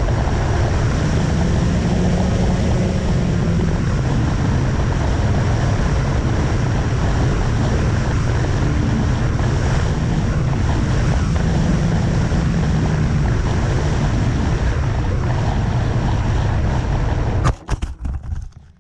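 FPV quadcopter's electric motors and propellers running in flight, heard through the onboard camera's microphone under heavy wind rumble. Near the end the noise cuts off abruptly with a knock as the quad comes down into grass, followed by a few scattered ticks.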